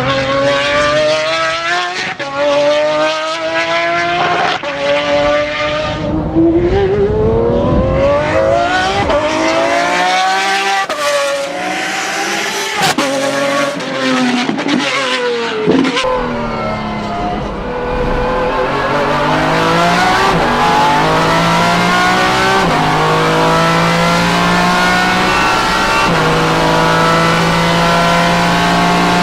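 Pagani Zonda R's AMG V12 at racing speed, with the whine of its straight-cut Xtrac six-speed sequential gearbox. The engine note rises and falls repeatedly through shifts, then in the second half climbs steadily with a few sharp upshifts.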